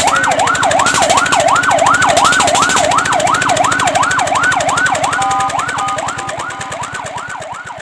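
Fire truck siren on its fast yelp, the pitch sweeping up and down nearly three times a second. A steady tone sounds alongside it briefly about five seconds in, and the siren fades away over the last couple of seconds.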